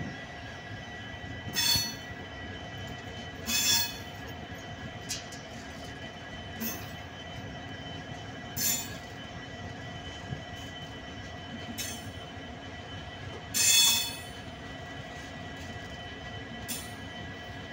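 Express train's LHB passenger coaches rolling past slowly, wheels squealing steadily against the rails. Short louder screeches come every two to three seconds, the loudest about three-quarters of the way through.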